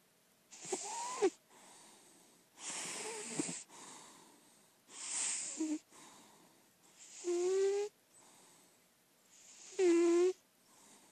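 Lilac point Siamese cat snoring in sleep: five noisy snores about two and a half seconds apart, with softer breaths between. The later snores carry a whistling tone.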